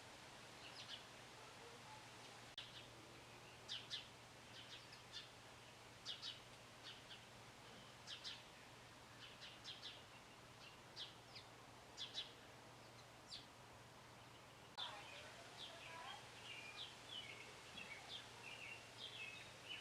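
Small songbirds chirping faintly: short high chirps, scattered and often in quick pairs. From about fifteen seconds in, a busier warbling song joins them. A faint steady low hum runs underneath.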